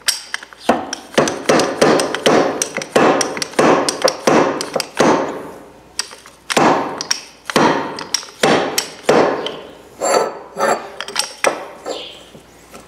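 A slide-type fork seal driver is slammed repeatedly down a motorcycle fork tube, driving a seal into the fork leg. It makes a run of sharp metallic clanks, about two a second and uneven, each ringing briefly.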